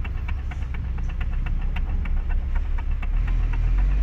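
Inside a moving Honda City: steady low engine and road rumble that deepens about three seconds in, with a run of small light clicks ticking over it.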